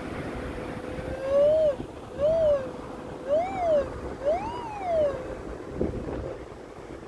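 Metal detector's steady threshold hum, broken by four rising-and-falling target tones as the search coil sweeps over buried metal, each peaking higher than the last. Wind and surf noise lie behind.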